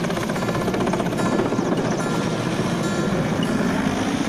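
Large military transport helicopter flying low, its rotor and engines running loud and steady, with the rapid even beat of the blades.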